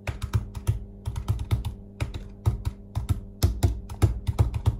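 Typing on a laptop keyboard: quick, irregular runs of sharp key clicks with short pauses between them.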